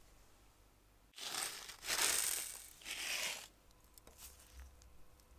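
Crinkling, rustling noise in three surges lasting about two seconds, starting about a second in, followed by a few faint light clicks.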